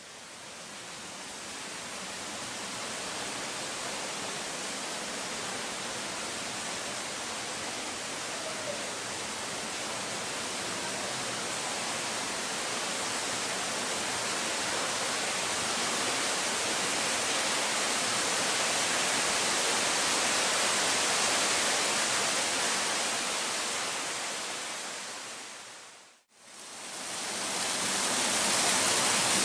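Steady rush of a mountain river and small waterfalls in a rock gorge, a dense even sound with no separate splashes. It slowly swells, drops out for a moment near the end, and comes back louder, with more hiss.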